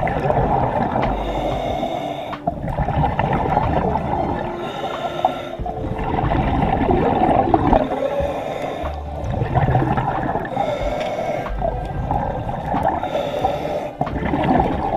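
Underwater water noise picked up by a submerged camera while a spearfisher swims along a reef, with short rasping, breath-like sounds recurring every two to four seconds.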